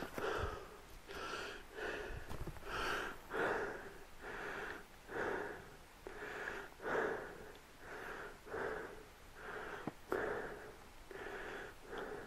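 Snowshoe footsteps crunching and squeaking on packed snow at a steady walking pace, about two steps a second.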